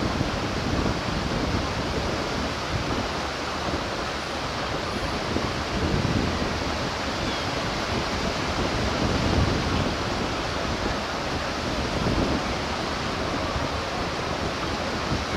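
Steady rushing of surf and wind on an open beach, swelling every few seconds.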